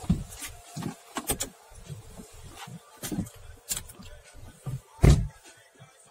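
Knocks and clicks inside a car: a car door shutting just at the start, then scattered bumps as the car pulls away, the heaviest a deep thump about five seconds in.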